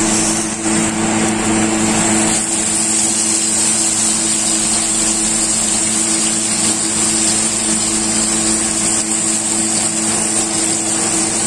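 T-bone steak searing in a hot, oiled aluminium frying pan: a steady, loud sizzle that starts as the steak is laid in. A steady low hum runs underneath.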